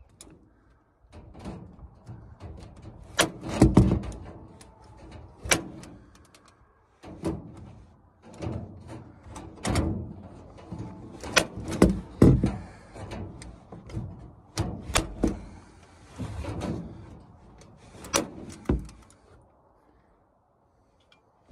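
Irregular knocks, clacks and rattles of a wooden, wire-mesh-covered coop door being handled while a metal slide-bolt latch is fitted to it, with a few sharper, louder knocks among them.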